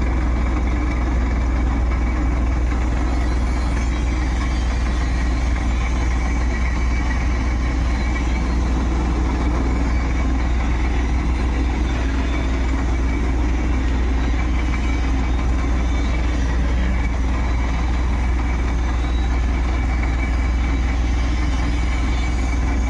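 Tata Ace Gold mini truck's engine idling steadily, a deep even hum with no revving.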